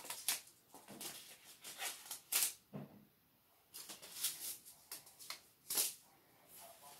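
Seed packets and small items being picked up and handled on a wooden cutting board: a scatter of short paper rustles and light knocks, the loudest about two and a half seconds in and again near six seconds.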